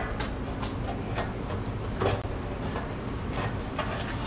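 Hand tools working on the exhaust under a lifted car: irregular metallic clanks and clicks, several in a few seconds, over a steady low rumble of shop noise.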